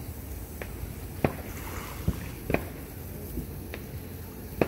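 Scattered firework pops: about six irregular sharp cracks over a low steady rumble, the loudest about a second in and just before the end.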